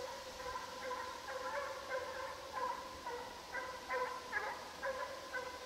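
Russian hounds baying in chase, their voices coming in a run of repeated calls about two or three a second.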